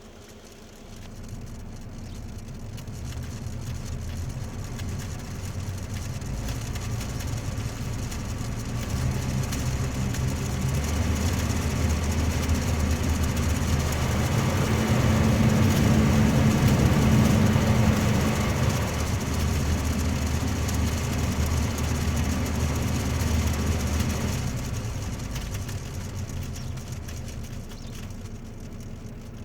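Peugeot 407 ventilation blower fan running, with the crackling and odd noises that come only when the ventilation is on, the sign of a fault in the blower. It grows louder over the first fifteen seconds or so and eases off again after about twenty-four.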